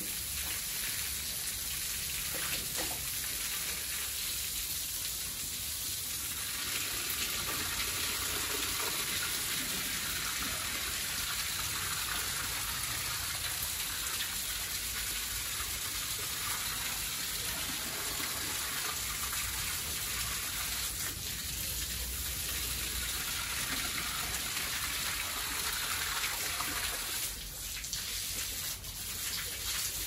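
Water spraying steadily from a garden hose and splashing onto a concrete pen floor and a pig's back.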